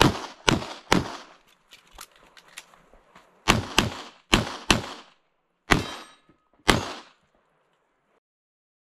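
Pistol shots fired rapidly, about ten in all, in quick pairs and singles, with a few fainter knocks between the first shots and the next run. The shooting stops about seven seconds in.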